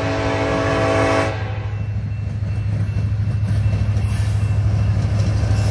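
Norfolk Southern diesel freight locomotive's air horn sounding a chord, cutting off about a second in. The locomotive's low engine rumble then grows louder as the train approaches.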